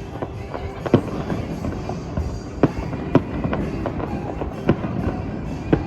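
Aerial fireworks bursting: about five sharp bangs, the loudest about a second in, over continuous crackling from the shells, with music playing underneath.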